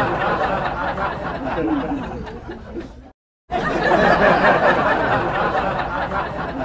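Canned audience laughter sound effect: a crowd laughing that dies away and stops abruptly about three seconds in. After a brief silence the same laugh starts over.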